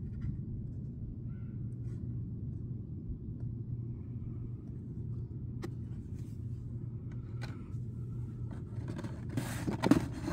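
A steady low hum runs underneath throughout. About nine seconds in comes a quick run of rustling and scraping as a blister-carded die-cast car is slid out of a cardboard shipping case against the other cards.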